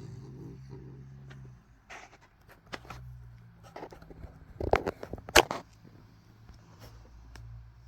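Low, steady snoring, broken in the middle by a run of sharp clicks and knocks, the loudest two a little under a second apart.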